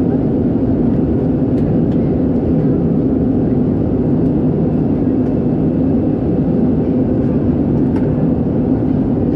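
Steady cabin drone of an Airbus A320-214 in flight, heard inside the passenger cabin: the low, even noise of its CFM56 turbofan engines and the air rushing past the fuselage.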